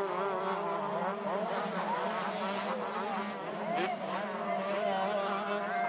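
Several 125cc two-stroke motocross bikes racing together, their engines revving up and down as the riders work the throttle round the track.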